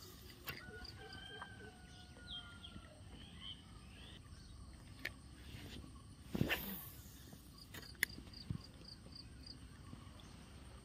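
Pond-side ambience of insects chirping in an even, repeating rhythm, with a bird whistling in the first few seconds. A brief whoosh about six and a half seconds in and a few sharp clicks come from handling the fishing rod and spinning reel.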